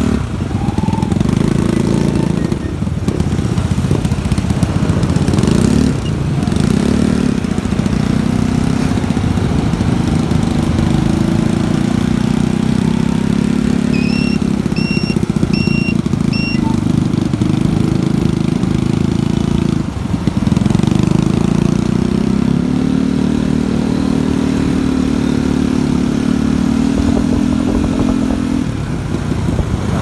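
Motorcycle engine running at low speed, its pitch drifting up and down a little, with rushing noise over it. Four short high beeps sound about halfway through.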